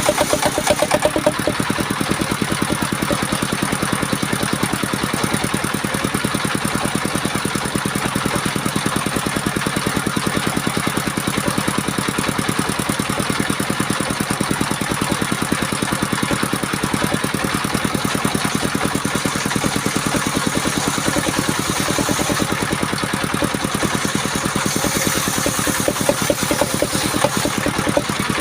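Engine of a homemade portable circular saw rig running steadily with a rapid, even pulse.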